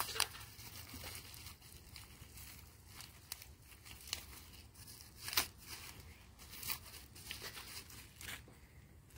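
Plastic packaging being handled and pulled open by hand: faint crinkling and rustling with scattered sharp crackles, a few louder ones near the middle.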